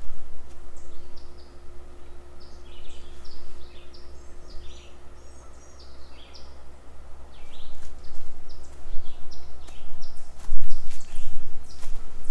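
Small songbirds chirping in quick, short, high calls through the first half. From about eight seconds in, a run of close, sharp footstep-like knocks on the trail takes over and is louder. A steady low rumble runs underneath.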